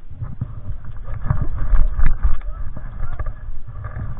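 Hurried footsteps and gear knocking as an airsoft player moves across the field, with heavy rumble of wind and handling on the microphone and scattered sharp clicks, loudest about two seconds in.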